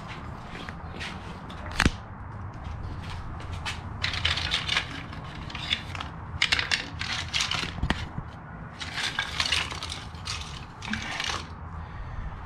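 Metal spring clamps being handled and pulled from their mesh packaging: a sharp click about two seconds in, then repeated bursts of rattling and crinkling.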